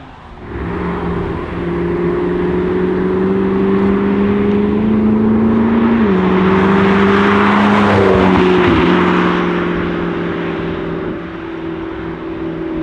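Audi RS7 C7's twin-turbo V8 with a decatted Akrapovic exhaust, loud under acceleration. Its pitch climbs slowly, then drops about six seconds in at an upshift. It grows loudest as the car goes by, then fades.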